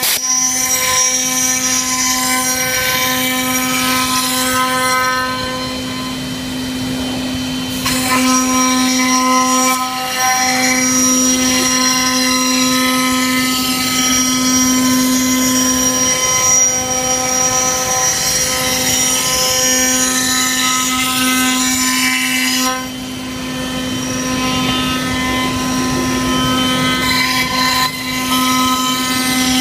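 Wood router running at speed with a bearing-guided bit cutting camphor laurel: a steady high motor whine over the hiss of the cut. The load eases briefly twice, a few seconds in and again about two-thirds of the way through.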